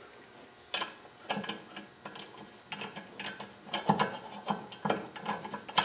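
Ratchet wrench clicking in short back-and-forth strokes as a nut is run down onto a tie rod end's stud. The clicks come irregularly, about two or three a second, and grow more frequent toward the end.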